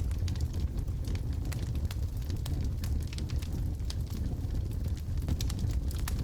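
Wood fire in a fireplace, logs burning with irregular sharp crackles and pops over a steady low rumble.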